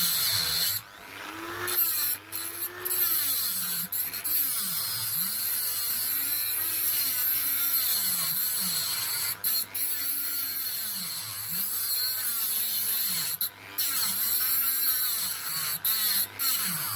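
Grinder cutting through rusted bolts on a lawnmower's deck. Its motor pitch sags and recovers again and again as the disc is pressed into the metal, with a short break about a second in and another near the end.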